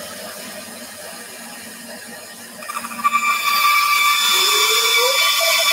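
Bandsaw running, then its blade biting into a softwood board about three seconds in. The cut is much louder than the idle running and adds a steady high whine.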